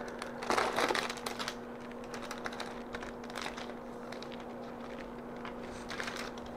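Clear plastic sleeve crinkling and crackling as it is pulled open by hand to free a paper bookmark, densest in the first second and a half, then lighter scattered crackles and clicks.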